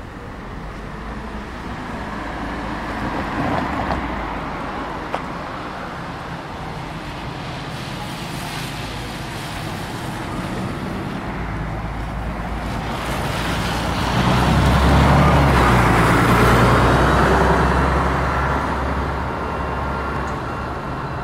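City street traffic: vehicles passing one after another. The loudest is a heavy vehicle whose low engine drone swells about two-thirds of the way in and fades near the end.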